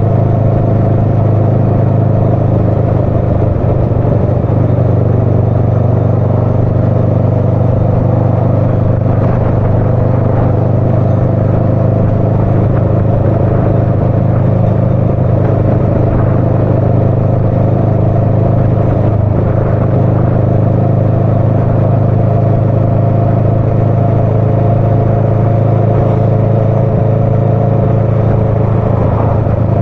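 Motorcycle engine running at a steady pace while riding, an even, loud drone that hardly changes.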